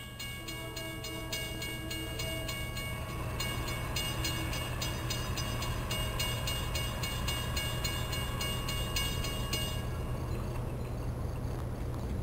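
A railroad warning bell ringing rapidly, about three to four strikes a second, then stopping about ten seconds in. Under it a low rumble grows steadily louder as a train approaches.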